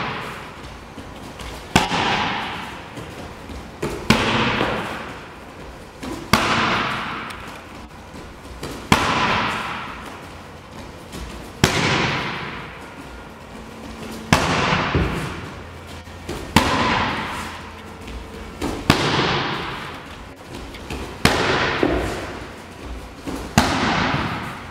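Barefoot kicks slapping into a BAX kick shield held by a partner, about ten sharp smacks spaced a couple of seconds apart, each ringing on in the hall's echo.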